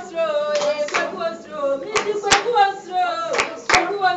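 Voices singing a song with sharp handclaps through it, the claps often coming in quick pairs.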